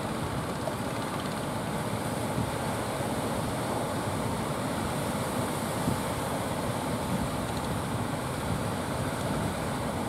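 Strong wind on the microphone with surf, a steady low rumbling rush with no clear pitch.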